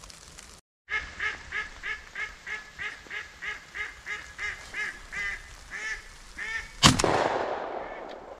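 A live decoy duck quacking loudly in a long run of about three quacks a second, the quacks spacing out toward the end. About seven seconds in comes a single shot from an inertia semi-automatic shotgun, the loudest sound, echoing away over a second or more.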